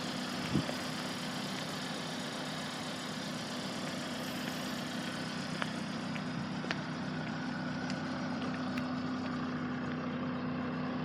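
Hyundai Santa Fe engine idling steadily, with a single thump about half a second in and a few faint clicks.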